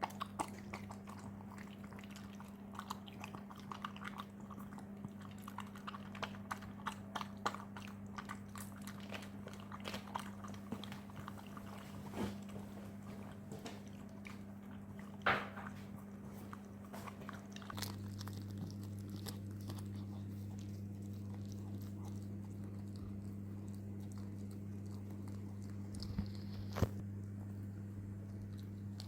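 Miniature schnauzer chewing and crunching on food: irregular crisp crunches and clicks, frequent in the first half and sparser later, with a few louder snaps. A steady low hum runs behind and gets louder a little past halfway.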